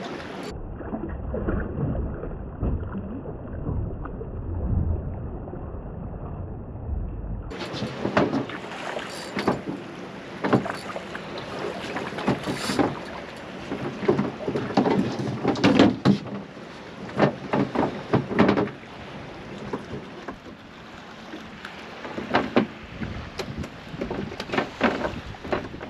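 Wind rumbling on the microphone for the first several seconds, then irregular slaps, splashes and knocks of water against a small boat's hull.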